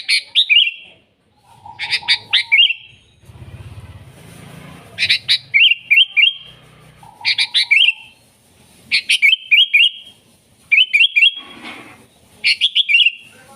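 Sooty-headed bulbul (kutilang) singing loud, lively song: the same short phrase repeated about every two seconds, a few sharp notes followed by a quick run of bubbly notes.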